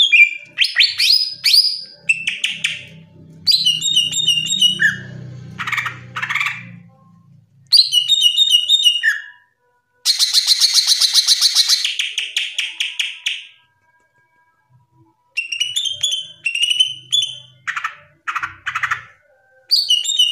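Green leafbird (cucak ijo) singing a loud, varied song in quick bursts of rich whistled notes and chatter. About ten seconds in comes a fast rattling trill, followed by a short pause before the song resumes.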